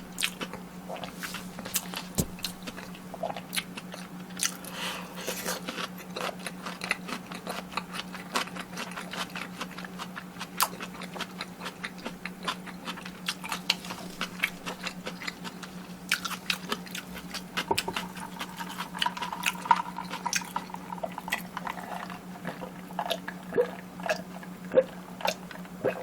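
Close-miked chewing and biting of fried food, with many small irregular crunches and crackles, over a steady low electrical hum.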